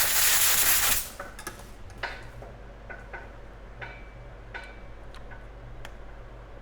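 A loud hiss lasting about a second, then scattered light clicks and taps of small tools and parts handled on a workbench.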